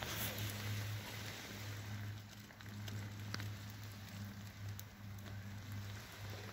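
Light rain pattering, with a steady hiss and scattered single ticks of drops, over a steady low hum.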